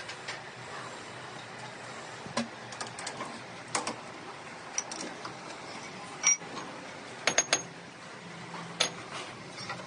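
Irregular light metallic clinks and knocks, about a dozen, some with a short high ring, as tools and metal parts are handled; the loudest come a little past the middle, three in quick succession, over a steady low hum.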